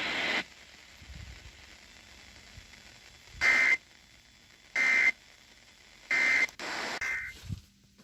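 Emergency Alert System end-of-message data bursts heard over the radio: three short, loud, shrill warbling bursts about 1.3 seconds apart, with hiss between them, marking the end of the test. A longer, ragged burst of the same kind follows near the end.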